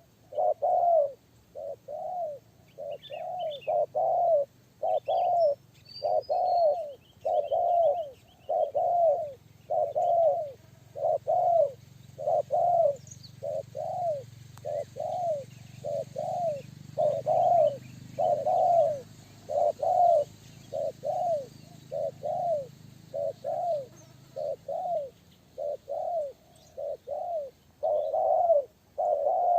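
Spotted dove (tekukur) cooing on and on: short, deep coo notes repeated about once a second in unbroken runs. Faint high chirps of small birds come in for a few seconds near the start.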